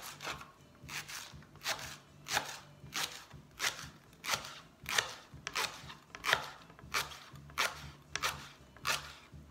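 Chef's knife slicing through a leek into rings on a plastic chopping board: a steady run of short crunching cuts, about three every two seconds, each ending as the blade hits the board.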